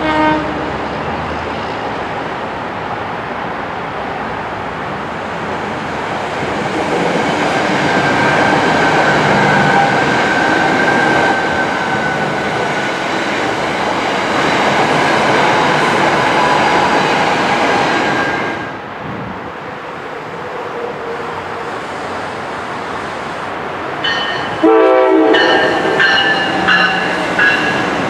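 NJ Transit Arrow III electric multiple-unit train running past at speed, a steady rush of wheels on the rails. About 24 seconds in, a train horn sounds and a train of NJ Transit Multilevel double-deck coaches rolls by.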